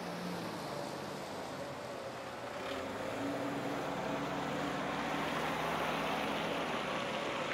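Steady hum of distant city traffic, an even wash of noise with a faint low drone running through it.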